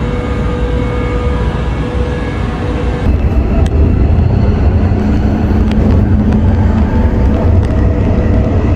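Steady low rumble of a moving vehicle, a little louder from about three seconds in.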